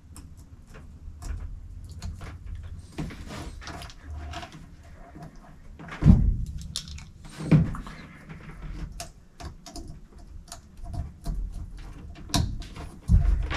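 Hand tools and wires handled during car wiring work: scattered clicks and rustles of a wire crimper/stripper and wire, with a few dull thumps, the loudest about six seconds in and two more near the end.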